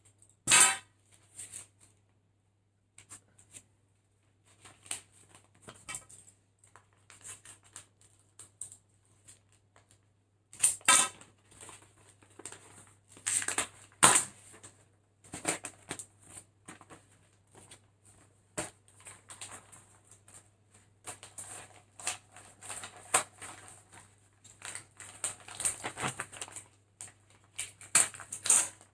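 Packaging being handled and unwrapped by hand: irregular crackling and rustling of plastic wrap and cardboard, with louder crinkling bursts about half a second in and again around eleven and fourteen seconds, and busier handling in the last third.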